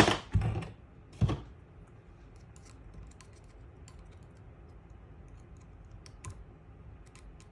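Small metal clicks and taps of an Allen key working on a Browning X-Bolt trigger assembly while trying to work the trigger spring off its nub. There are two sharper clicks in the first second and a half, then a few faint ticks.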